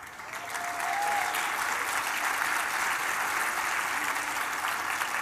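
Audience applauding, starting about half a second in and holding steady, with a short high call from the crowd near the start.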